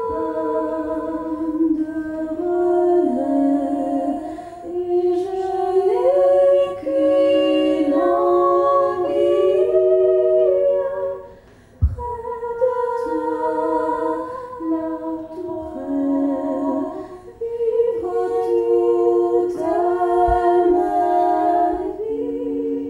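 A cappella singing: several voices holding notes together in harmony and moving between chords, with a short break about halfway through before the singing resumes.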